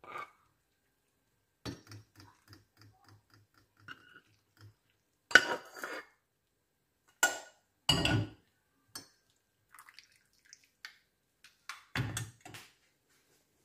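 Metal tea strainer and saucepan clinking on a ceramic cup while milky tea is strained into it. A run of light, evenly spaced taps, about three a second, comes first. Then a few loud clanks of metal on china and metal follow, and a last clatter near the end as the strainer is set into the pan.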